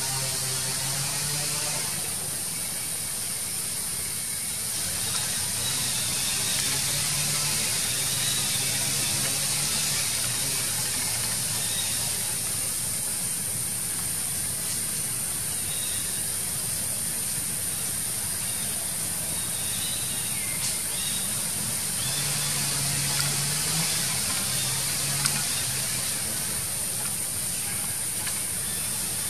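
Steady high hiss of outdoor ambience, with a low engine-like hum that fades in and out, strongest near the start and again about three-quarters through.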